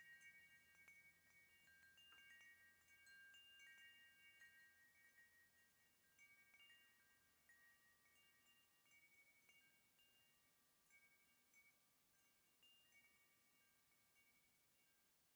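Metal wind chime ringing: several sustained bell-like tones, restruck now and then at irregular moments. It grows steadily fainter as the chimes settle.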